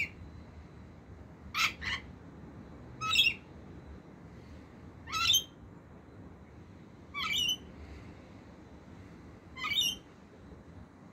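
Rainbow lorikeet giving short, high-pitched screeching calls: a quick pair, then single calls about every two seconds, six in all.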